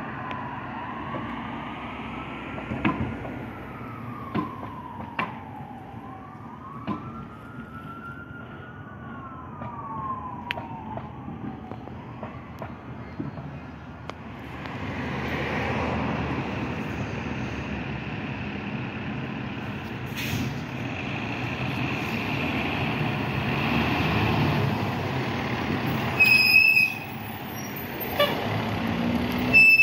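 Fire engine's siren wailing, rising and falling, as it moves off along a street. After a cut, a fire engine's engine runs as it pulls out of the station, with two short, loud high-pitched blasts near the end.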